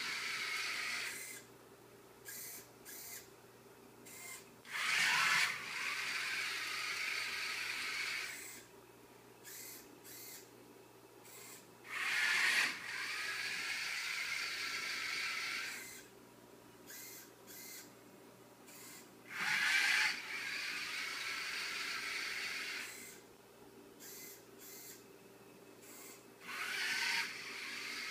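The small DC gear motors of a four-wheel-drive Arduino robot run with a steady whine for a few seconds at a time as it drives on hard plastic wheels without tires. Each run starts with a louder burst. Between runs the robot stops, and the servo swinging its ultrasonic sensor gives several short whirs before the motors start again.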